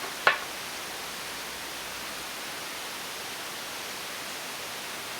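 Steady even hiss, with one sharp knock a third of a second in.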